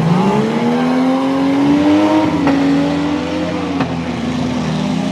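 A demolition derby car's engine revving hard, its pitch climbing over about two seconds, then held and easing off a little. Two faint knocks sound about two and a half and four seconds in.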